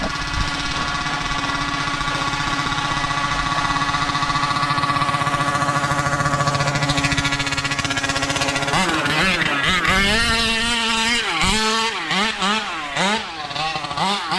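Taylor 50cc two-stroke engine of a 1/5-scale RC car running at high, steady revs, then, from about nine seconds in, revving up and down rapidly as the throttle is worked on and off.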